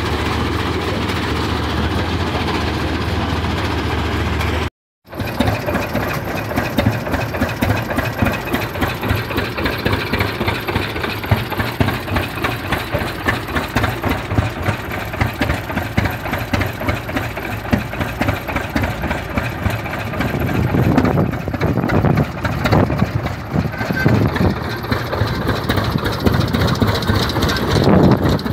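Old kerosene-burning tractor engines running. First comes a steady low hum, then after a brief break about five seconds in, a Rumely OilPull engine fires in rapid, even pulses. Heavier low thumps join in over the last several seconds.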